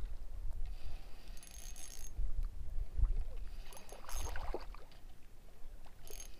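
Low, uneven wind rumble on the microphone, with two short spells of a spinning reel's soft whir as its handle is cranked to retrieve line.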